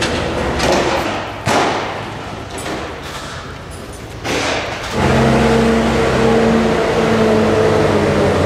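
Bobcat skid-steer loader's diesel engine running as it works sawdust with its bucket; a few brief knocks in the first half, then the engine comes in louder and steady about five seconds in.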